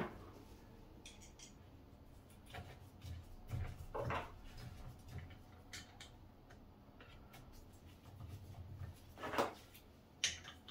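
Pedal being fitted to a mountain-bike crank arm: faint scattered clicks and a few light knocks of metal parts being handled, the louder ones about four seconds in and near the end.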